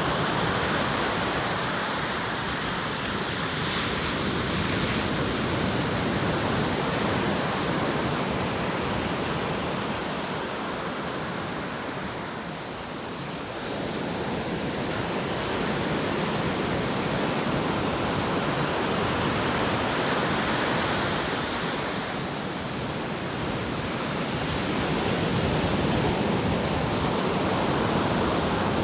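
Ocean surf: waves breaking and washing ashore in a continuous rush that swells and eases, dropping briefly about twelve seconds in and again past twenty seconds.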